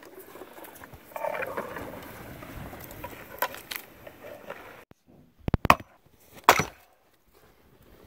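Boots crunching through deep snow with a wooden sled of logs dragging behind, a steady rustle. About five seconds in this gives way to sharp wooden knocks from splitting firewood with an axe: two quick ones, then a louder crack about a second later.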